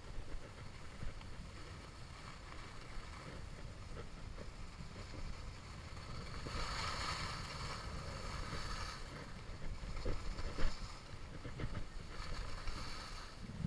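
Skis hissing and scraping over groomed snow on a fast downhill run, under a steady low rumble of wind on the microphone. The ski hiss swells loudest from about six to nine seconds in, as in a carved turn.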